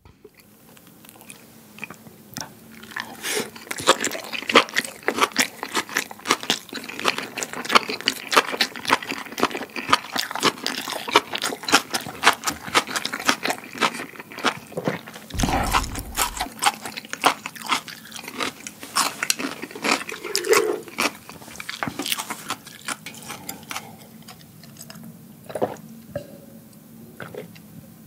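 Close-miked chewing of a chewy rice-paper wrap of spicy fire noodles with enoki mushrooms: dense, irregular wet mouth clicks and smacks that thin out after about 24 seconds. A single low thump comes about halfway through.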